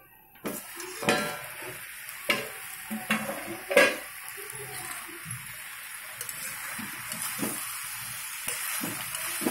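Chicken pieces sizzling in hot oil in a metal kadai while a metal ladle stirs them, scraping and knocking against the pan a few times in the first four seconds, loudest about four seconds in; a steady sizzle carries on after that.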